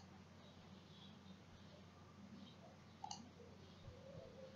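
Near silence with faint room hiss, broken by a single computer mouse click about three seconds in.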